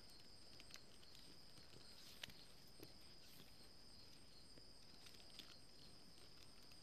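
Near silence: a few faint clicks of plastic weaving strips being handled and tucked by fingers, over a faint steady high tone.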